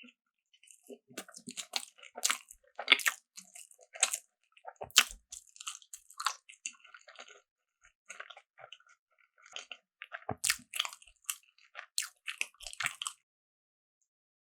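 Close-miked eating: crunchy bites and chewing in two spells of crackling, separated by a short pause near the middle.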